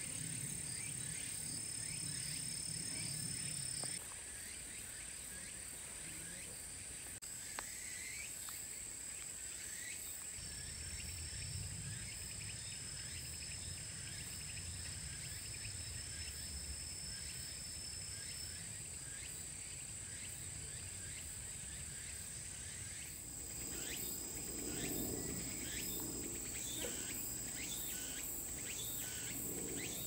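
Singing insects trilling steadily in high continuous tones over a faint low rumble. The background shifts abruptly a few times.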